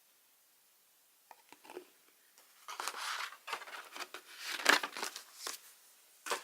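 Paper and packaging from a calendar set being handled, rustling and crinkling. A few light clicks start about a second in, then a denser crackle follows, loudest near the middle, with a last short crackle near the end.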